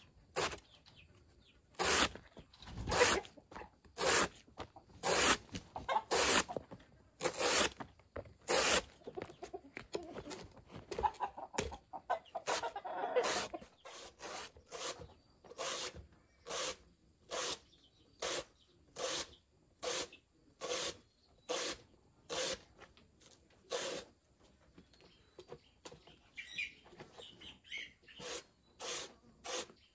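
Rhythmic scraping strokes, about one a second at first and about two a second later on, with a chicken clucking partway through.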